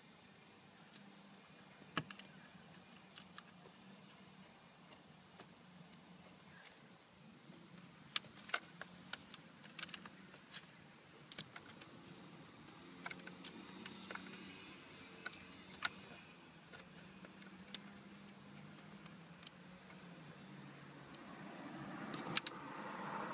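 Scattered small clicks and taps of fingers handling the plastic front of an Eonon D5163 car head unit, around its micro SD card slot and touchscreen, over a faint steady hum. The sharpest click comes near the end.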